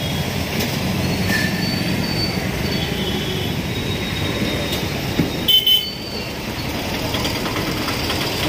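Steady roadside traffic noise picked up on a phone's built-in microphone, with a brief shrill sound about five and a half seconds in.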